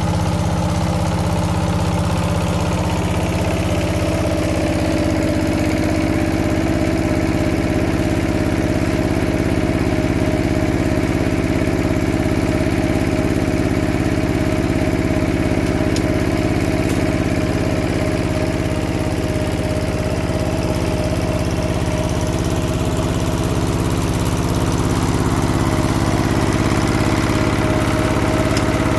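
Walk-behind power tiller's single-cylinder diesel engine running steadily, its tone changing slightly about four seconds in.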